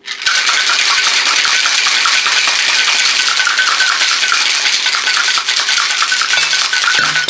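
Ice cubes rattling inside a Boston cocktail shaker that is being shaken hard: a loud, fast, unbroken rattle that starts a moment in and stops near the end.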